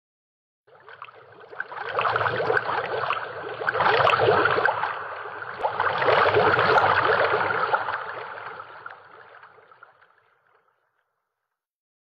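Dense crackling, fizzing sound effect for an animated logo sting. It builds up over a couple of seconds, holds, then fades away near the end.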